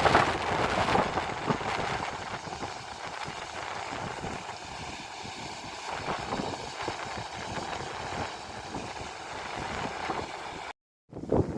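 Steady rushing of river water pouring over a weir, an even noise with no distinct events; the sound cuts out for a moment near the end.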